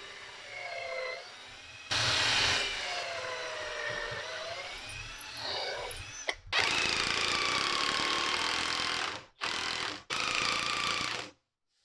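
Guild cordless drill boring pilot holes into hardwood, its motor whine rising and falling in pitch as the trigger is worked. Near the end, a Guild cordless impact driver runs in two short bursts, driving screws home.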